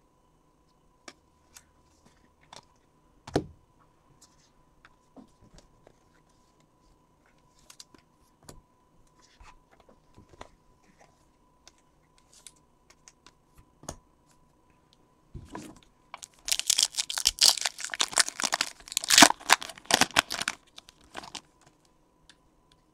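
Light taps and clicks of cards being handled, with one sharper knock about three seconds in. About sixteen seconds in, a foil trading-card pack is torn open and crinkled by hand for about four seconds, the loudest sound.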